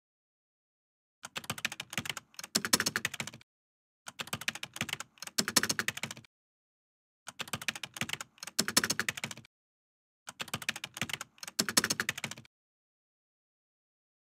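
Rapid key clicks of typing on a keyboard, in four bursts of about two seconds each with dead silence between, one burst for each line of text being typed out.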